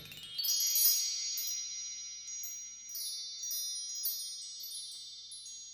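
Chimes tinkling: clusters of high ringing tones struck again and again at irregular intervals, each ringing on over the next, the whole slowly fading.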